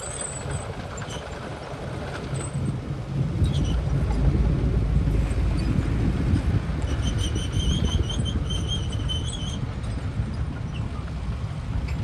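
Heavy diesel machinery running with a low rumble that grows louder about three seconds in. A high-pitched squeal in rapid pulses joins from about seven seconds in, for two to three seconds.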